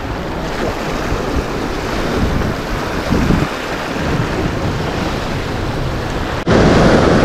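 Sea waves surging and breaking against a rocky shore, with wind buffeting the microphone. The sound jumps suddenly louder near the end.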